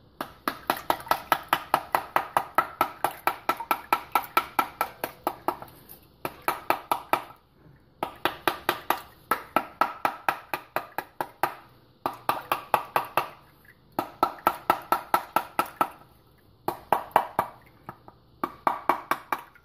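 Wooden spoon knocking on the rind of a scored pomegranate half, rapid knocks about five a second in seven runs broken by short pauses, beating the seeds loose into a bowl of water.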